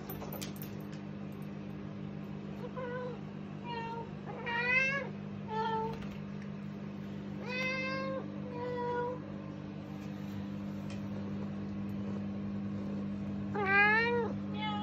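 Domestic cats meowing for food at feed time: about seven drawn-out meows, several rising then falling in pitch, with the loudest near the end.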